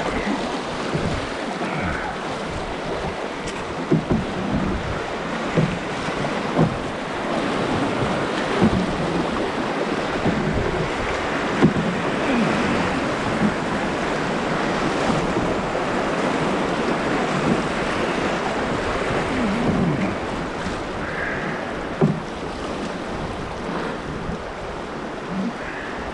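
Rushing whitewater of a class II brook rapid heard from an open canoe running it, a steady hiss with occasional short louder splashes.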